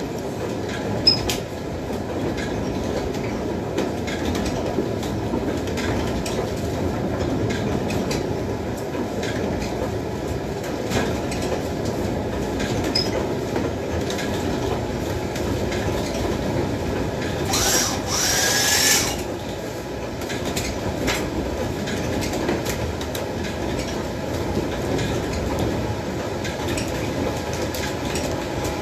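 Wind-driven corn mill machinery running: the wooden gearing and millstones make a steady rumbling clatter with scattered clicks. There is a sharp knock about a second in, and a brief high squeal just past the middle.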